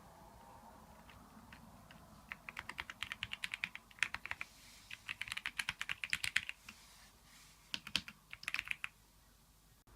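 Typing on a Keychron V6 Max mechanical keyboard with Gateron Brown tactile switches. Quick runs of keystrokes start about two seconds in, pause briefly, then come back in a short burst near the end.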